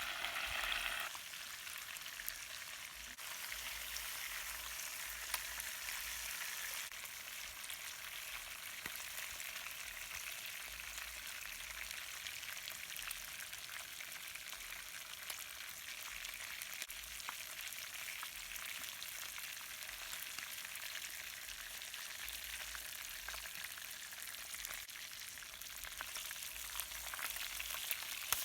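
Skinned fish frying in hot oil in a pot on a charcoal coal pot stove: a steady sizzle with fine crackling, a little louder for the first second.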